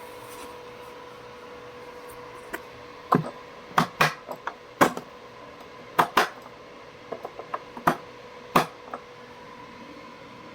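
A dozen or so sharp, irregular clicks and knocks of hard objects being handled, starting about three seconds in and stopping near nine seconds, over a steady faint hum.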